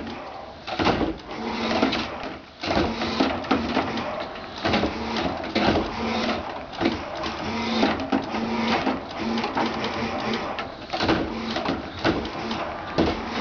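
Trash-can pop-up prop worked by a sump pump: the lid rattles and knocks over and over as it pops up and drops back, over a steady hum from the running pump.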